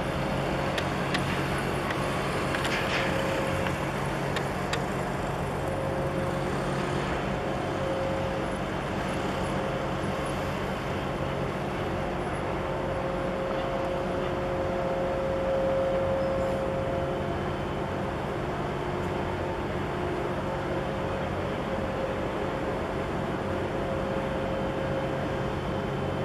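Steady low drone of a large container ship's engines as it passes close by, with a faint humming tone over it that swells a little about halfway through.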